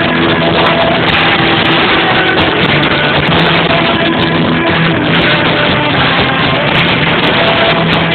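Live rock band playing loudly: electric guitar over a drum kit, in a poor-quality recording.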